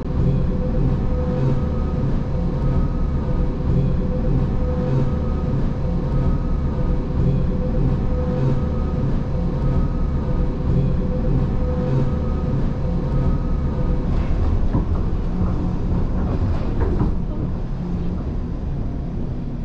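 Gornergrat Bahn electric rack-railway train running downhill: a steady rumble of wheels and rack gear with a hum that swells every second or two. About three quarters of the way through it clatters over points, then grows quieter near the end.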